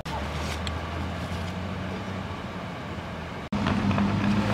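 A vehicle engine idling steadily. About three and a half seconds in the sound cuts abruptly to a louder, slightly higher-pitched engine hum.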